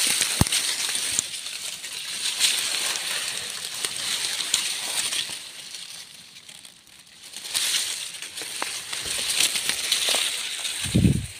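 Dry grass stalks and leaf litter rustling and crackling as someone pushes through on foot, easing off briefly a little past the middle. A dull thump sounds near the end.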